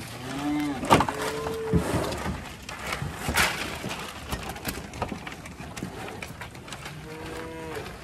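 Angus cattle mooing: two short, fairly high calls about half a second and a second in, and a third near the end, with scattered clicks and knocks between them.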